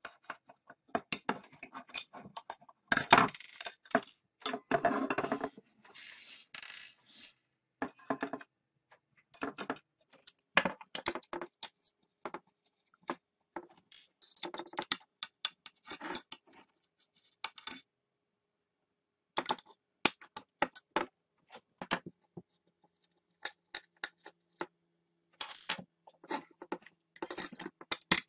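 Irregular small clicks and metallic clinks of a hard drive being taken apart by hand: a screwdriver working screws in the open drive case, with tools and loose screws knocking on a wooden tabletop. The handling is busiest a few seconds in, and there is a short pause about two-thirds of the way through.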